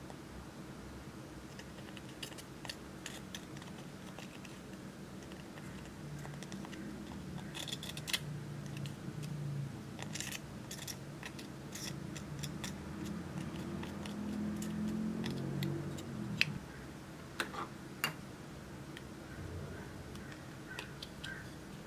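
Tip of small metal scissors scraping and prying eyeshadow out of its plastic compact, with scattered sharp clicks and taps of metal on plastic. A faint low hum rises and falls in the middle.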